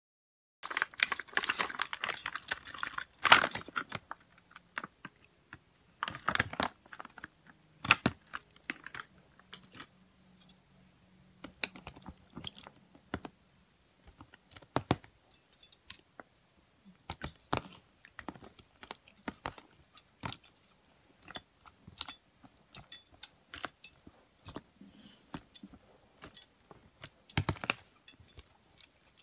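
Hands squeezing and pressing a large blob of slime: irregular wet clicks and pops, thickest in the first few seconds, then scattered every second or so.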